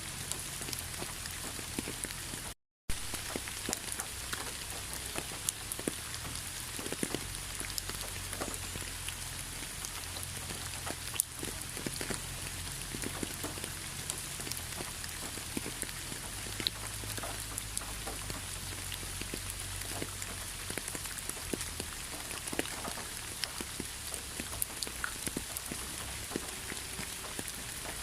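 Steady rainfall, with individual drops landing close by as scattered short clicks over an even hiss. The sound cuts out completely for a split second about two and a half seconds in.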